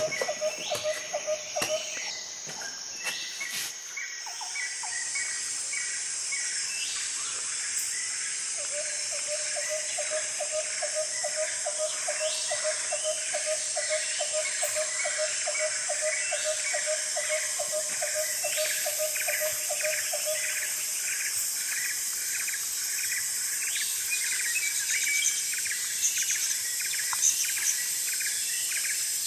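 Tropical insects droning in a steady high-pitched chorus, with repeated bird chirps over it and a fast run of low pulsed notes in the middle. A few clicks come in the first seconds.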